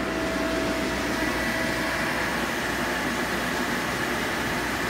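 Bounce-house inflator blower running steadily, a loud fan whoosh keeping an inflatable yard decoration filled with air.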